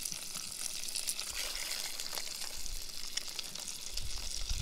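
Brook trout and potato slices sizzling in melted butter in a pan on a camp stove: a steady crackling hiss with scattered small pops.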